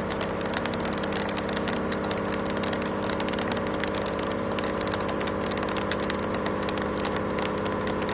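A 63 mm face mill with HNKX inserts taking a 2 mm-deep cut: a steady machine hum under a dense, rapid crackle.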